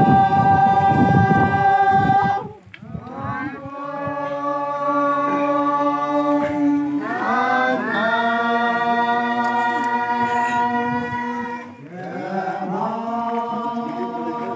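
A group of voices singing an unaccompanied chant in long held notes, phrase after phrase, with short breaths between phrases about two and a half seconds in and again near twelve seconds.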